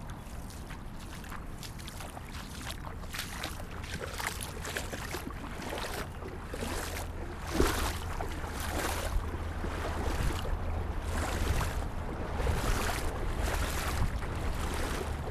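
A person wading on foot through a shallow stream, legs sloshing and splashing the water about once a second, louder after the first few seconds. A steady low rumble of wind on the microphone runs underneath.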